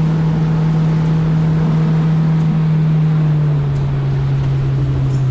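Boat's outboard motor running steadily under way, its engine note dropping a little about three and a half seconds in as the revs ease.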